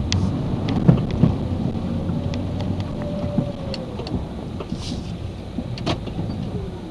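GMC Sierra 2500 HD plow truck heard from inside the cab as it moves and turns: a low engine rumble, a whine that rises and falls in pitch midway, and scattered sharp knocks and rattles.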